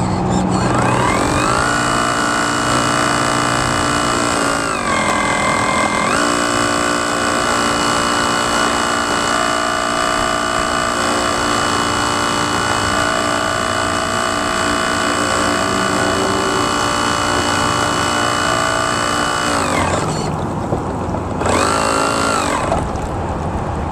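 Radio-controlled model boat's motor whining under throttle. It rises in pitch about a second in, dips briefly about five seconds in, holds steady at speed for a long stretch, then drops off, with one short burst of throttle near the end.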